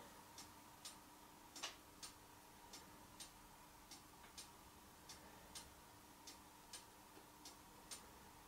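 Faint, evenly spaced ticking, about two ticks a second, over near silence and a faint steady hum.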